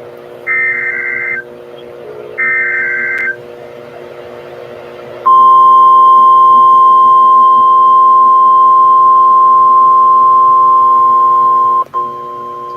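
NOAA Weather Radio Emergency Alert System signal. The last two of three SAME header data bursts, each a harsh electronic screech about a second long, are followed after a short pause by the steady 1050 Hz weather radio alert tone for about six and a half seconds. Near the end the tone dips briefly and carries on more quietly.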